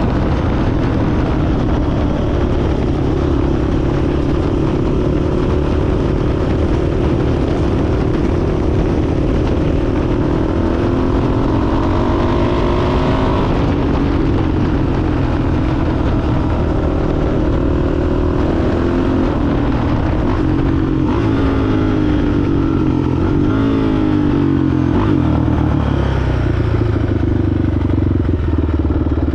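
Yamaha Raptor 660R ATV's single-cylinder four-stroke engine running under way. Its pitch rises and falls with the throttle several times, and it never drops out.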